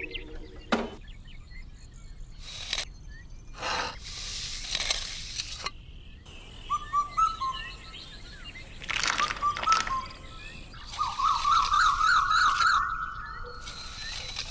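Small birds chirping and warbling, with a quick trilling run near the end, among several short bursts of hissing noise of unknown source.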